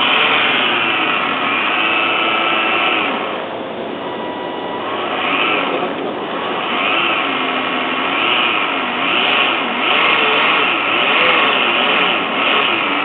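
Drive motor of a radio-controlled model container ship running under way, its whine swooping up and down in pitch again and again as the throttle changes. A rushing hiss swells and fades over it.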